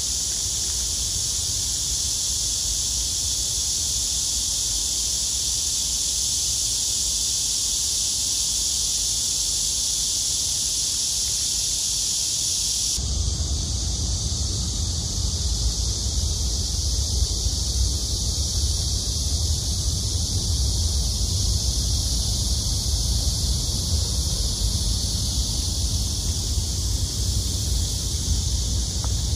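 Steady hiss of heavy rain falling. About halfway through, the hiss thins and wind buffets the microphone with a low rumble.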